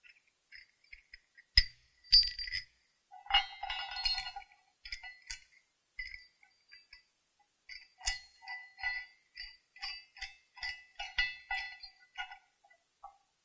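Metal clinks and clicks of a wrench and bolts against a steel pipe flange clamp as it is fitted onto an expansion joint. There is a sharp knock about a second and a half in, and a run of quick clinks in the second half.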